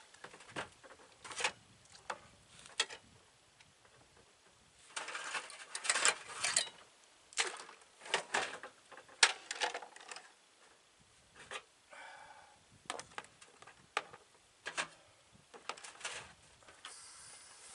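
Dishes and utensils clinking and knocking in a wash basin during hand washing, in scattered irregular clicks with a busier stretch of clattering and water movement about five to seven seconds in.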